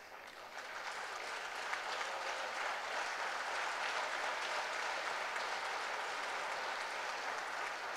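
Audience applauding, swelling over the first second and then going on steadily.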